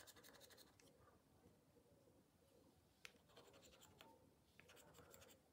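Faint scratching of the scratch-off coating on a Bingo Bonus scratch card, in three short bouts with a couple of light clicks.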